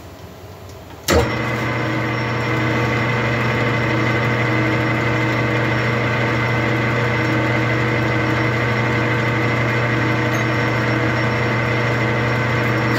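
Metal lathe switched on about a second in: a brief surge, then the motor and drive run at steady speed with a constant hum and whine as the chuck spins.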